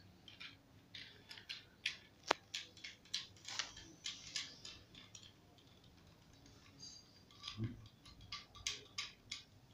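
Small plastic clicks and scrapes from a selfie-stick tripod's phone holder being handled and its threaded clamp turned, with one louder sharp click about two seconds in. The clicking pauses briefly in the middle, then resumes with a soft bump.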